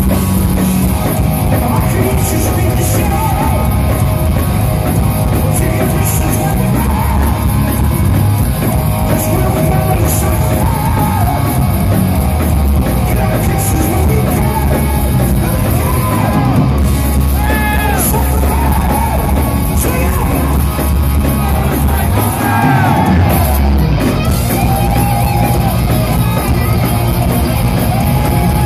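Heavy metal band playing live: distorted electric guitars, bass and drum kit, loud and steady, with lead vocals coming in around the middle.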